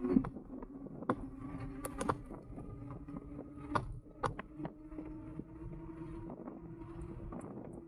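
Engwe Engine Pro e-bike riding: its hub motor gives a steady whine that steps up a little in pitch about halfway through, over scattered sharp clicks and knocks from the bike rattling over the road surface.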